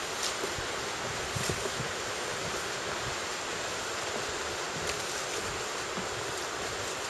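A steady rushing hiss outdoors, with a few faint footsteps on wooden boardwalk planks.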